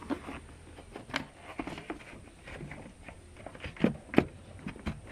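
Plastic air filter housing cover being pressed down and clipped shut over a new filter: a scatter of light knocks and clicks, with two louder clicks close together about four seconds in.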